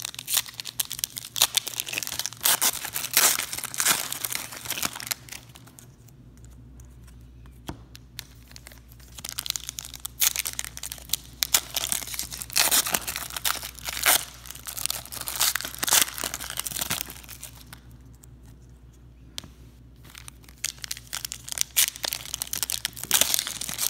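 Wrapper of a 2019 Donruss baseball card pack being torn open and crinkled in the hands, in three spells of crackly rustling with two short quiet gaps between them.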